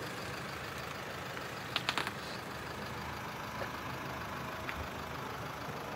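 Mercedes-Benz A-Class hatchback moving slowly while being re-parked, its engine running with a steady low rumble. A few sharp clicks about two seconds in.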